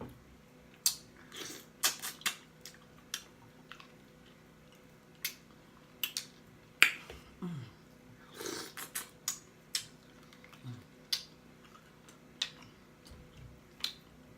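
Close-miked mouth sounds of eating: irregular wet lip smacks, lip pops and chewing clicks, a few a second, with short pauses between.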